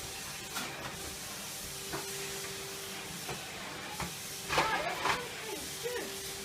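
Henry cylinder vacuum cleaner running steadily, a hiss of suction airflow over a faint motor tone. A few short knocks come as it is worked over the carpet, and a louder brief burst of noise comes about four and a half seconds in.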